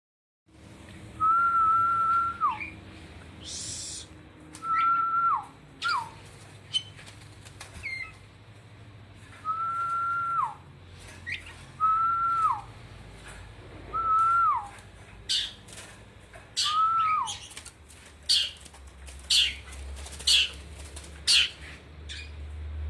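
Bird calls: six drawn-out whistles, each held level and then dropping sharply at the end, followed about two-thirds of the way through by a quick run of short, sharp high-pitched calls, over a steady low hum.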